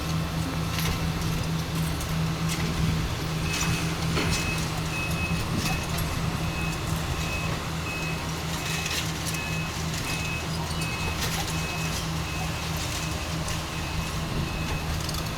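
Diesel engine of heavy demolition machinery running steadily, with its backup alarm starting to beep repeatedly about three and a half seconds in. Scattered short knocks of debris or machinery sound over it.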